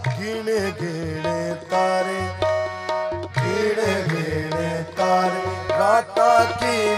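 Qawwali music: male voices singing a gliding, ornamented melody over sustained harmonium chords, with tabla keeping a steady beat.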